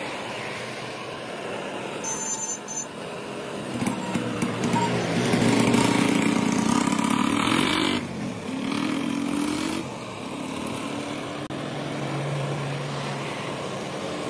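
A road vehicle passing close by, its engine growing louder to a peak about six seconds in and then fading, with the engine pitch rising and falling; a lower engine hum follows near the end.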